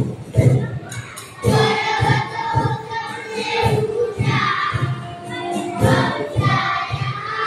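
Children's choir singing a patriotic song over backing music with a steady drum beat of about two beats a second; the voices come in about a second and a half in.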